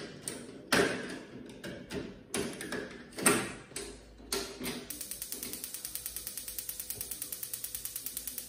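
A few handling knocks and clicks, then from about five seconds in the Paloma gas stove's battery-powered spark igniter ticking rapidly and evenly with the burner knob pressed. The burner has not lit yet: the sparking runs while the air is purged from the gas line before the gas arrives.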